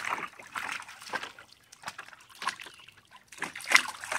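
Water splashing and sloshing in a dog's wading pool as a dog moves around in it, in irregular splashes with a sharper, louder one near the end.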